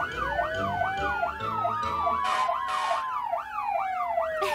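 Emergency sirens sounding together: a fast yelp siren sweeping up and down about three times a second over a slower wailing siren that rises and falls. Two short hisses come around the middle.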